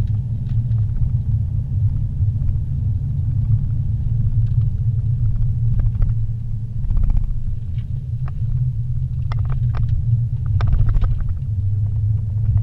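Car in motion heard from inside the cabin: a steady low rumble of road and engine noise, with a few brief clicks in the second half.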